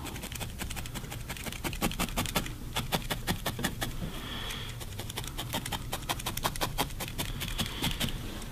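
Felting needle stabbing repeatedly into wool on a felting mat: a quick, irregular run of short, crisp pokes, several a second, as the wool is poked firm.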